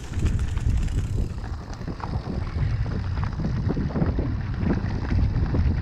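Wind rushing over the microphone and tyres rumbling over a dirt trail as a mountain bike rides at speed, with light rattles from the bike.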